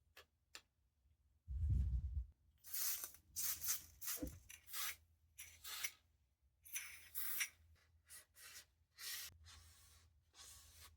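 Aerosol silicone-oil spray giving a string of short hissing bursts, about a dozen in quick succession, onto a model gun's parts. A dull thump comes just before them, about two seconds in.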